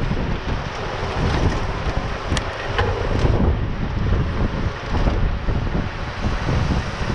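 Wind buffeting the microphone of a camera on a moving bicycle riding in a pack of mountain bikers, a steady gusty rumble.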